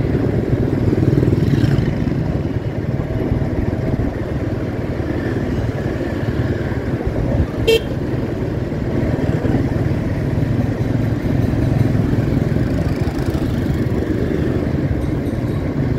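Steady street-traffic noise of motorbike and car engines passing on a busy city road, with a brief horn toot about eight seconds in.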